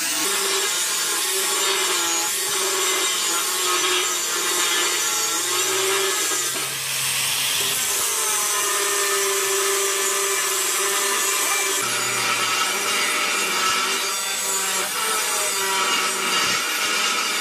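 Handheld angle grinder with a thin cut-off disc cutting through steel plate: a continuous harsh cutting noise over the motor's whine, which wavers a little in pitch as the disc is pushed along the cut.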